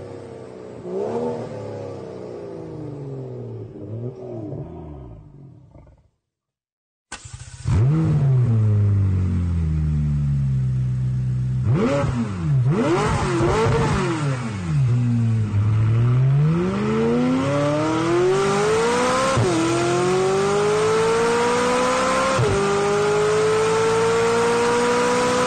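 A BMW 1 Series hatchback with an Akrapovič exhaust revving, fading out about six seconds in. After a second's gap, a McLaren with an Akrapovič exhaust blips its engine several times, then accelerates hard through the gears: the pitch climbs steadily and drops sharply at two upshifts.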